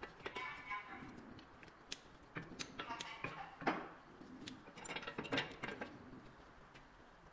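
Scattered metallic clinks, clicks and knocks of hand tools and brake parts being handled, some with a short ringing tone.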